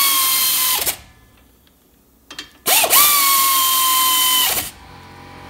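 Air ratchet running down the brake caliper bracket bolts in two bursts, the first ending about a second in and the second lasting about two seconds. Each is a steady high whine over a loud hiss, the pitch dipping slightly as the bolt snugs up.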